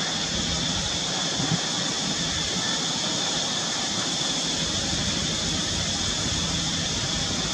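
Steady outdoor background noise: an even hiss with a constant high-pitched buzz over a low rumble.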